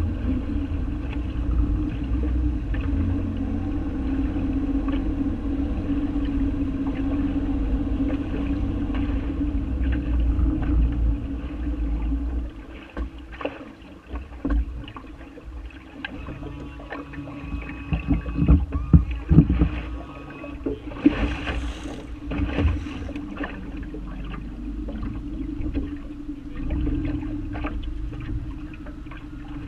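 Water rushing and slapping against the side of a fishing boat's hull, with a steady low rumble for the first half. It then drops quieter, with scattered knocks against the hull and a loud hissing splash about two-thirds of the way through.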